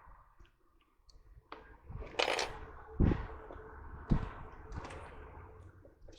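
Workbench handling sounds as a replacement power-management chip is fitted onto an induction cooker's circuit board: light clicks and taps, a short hiss about two seconds in, and two dull knocks around three and four seconds in.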